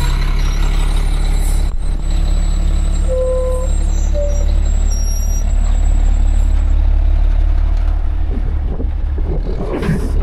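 A large truck's diesel engine running steadily with a deep rumble, with two or three short beeps a few seconds in.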